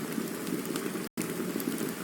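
Campfire burning: a steady low rush with faint crackles and pops. The sound cuts out completely for an instant about halfway through.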